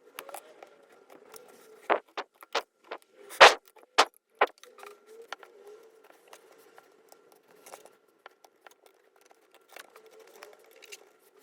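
Scattered sharp clicks and taps of hands and small tools working on an opened laptop, bunched together in the first few seconds, with the loudest knock about three and a half seconds in, then sparser.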